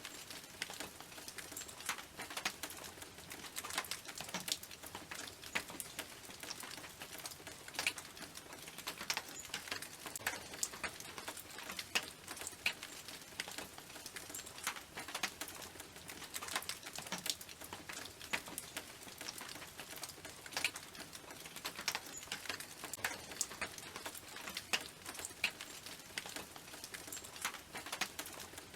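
Raindrops falling on a tin roof: a steady hiss of rain with many irregular, sharp individual drop taps.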